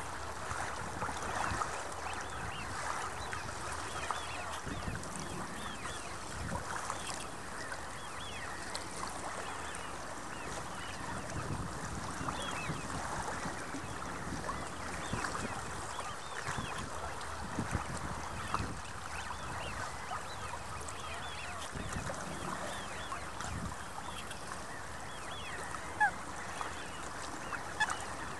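Waterfowl on a lake calling continuously, many short overlapping calls, with low gusts of wind rumbling on the microphone. A couple of sharper, louder calls stand out near the end.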